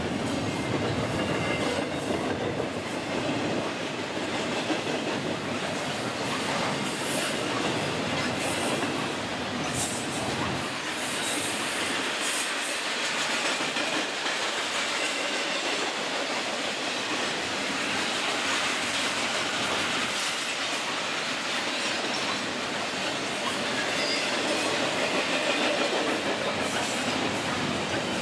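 Double-stack intermodal freight train's loaded well cars rolling past: a steady noise of steel wheels on the rails.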